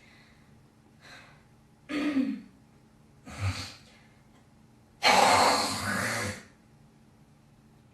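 A girl coughing and hawking up phlegm: a faint breath about a second in, short coughs about two and three and a half seconds in, then a long, loud, raspy hawk in the throat lasting about a second and a half.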